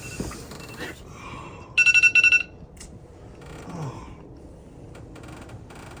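Electronic alarm beeping: one quick burst of rapid, high-pitched beeps about two seconds in, against low room tone.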